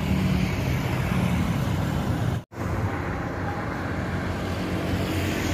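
Steady outdoor engine rumble of road traffic and jet airliner engines, breaking off to silence for a moment about halfway through.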